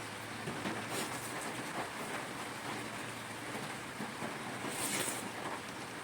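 Heavy rain falling steadily, a continuous even patter, with a few brief sharp ticks, one about a second in and another near the end.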